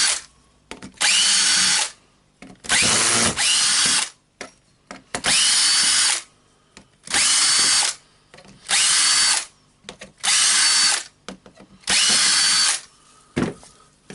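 Cordless drill-driver backing out screws in short runs: the motor whines up and runs for about a second, stops, and starts again, seven or eight times, with small clicks between runs as each screw comes free.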